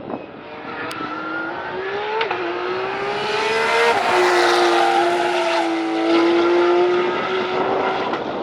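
GT race car engine accelerating hard, its note rising and dropping back at upshifts about two and four seconds in, then holding a steady high note as the car comes past at full throttle.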